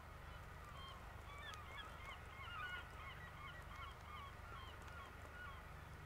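A flock of birds calling: many short, overlapping calls that bend up or down, busiest in the middle, over a steady low rumble.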